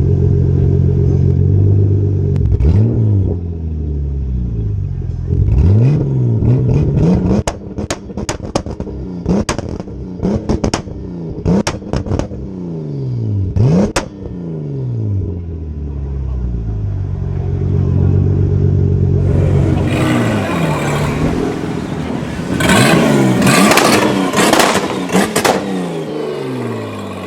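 Big-single-turbo Toyota Supra 2JZ-GTE inline-six being revved again and again, the engine pitch climbing and falling with each blip. Sharp pops and cracks come off the exhaust on several of the revs in the middle, and near the end a hissing, crackling stretch with rapid cracks.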